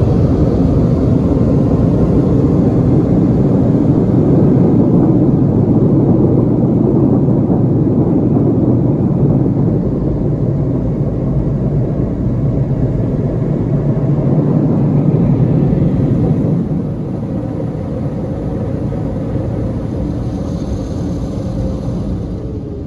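Istobal in-bay automatic car wash's dryer blowers running, a loud steady rush of air. The level drops about three-quarters of the way through and fades out near the end as the dryers wind down.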